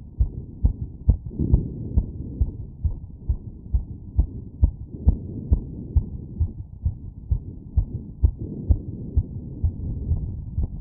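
Heartbeat heard through a stethoscope over the aortic valve area after exertion: an even run of low thuds, about two a second.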